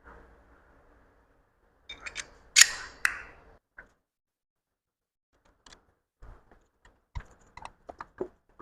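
Metal engine parts and hand tools being handled: a few sharp metallic clanks with a short ring about two to three seconds in, then scattered light clicks and taps.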